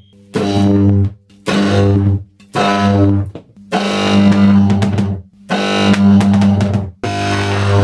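High-voltage arcs from a microwave-oven-transformer power supply, buzzing loudly at a steady low pitch with crackle. The buzz switches on and off sharply in about six bursts, each under a second at first and longer toward the end.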